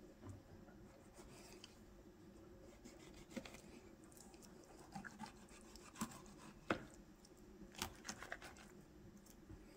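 Faint, scattered taps and scrapes of a fillet knife scoring the skin of a whole flounder, the blade now and then touching the wooden cutting board beneath, over a low steady hum.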